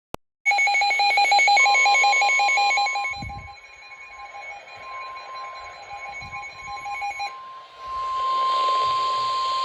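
NOAA Weather Radio emergency alert tones. A loud warbling, data-like burst of tones begins just after a click and fades down about three seconds in, and a long steady high alarm tone starts about a second and a half in and holds. This is the alert signal that comes before a warning is read.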